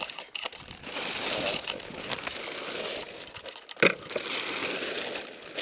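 Rustling and crinkling noise, uneven throughout, with one sharp knock a little before four seconds in.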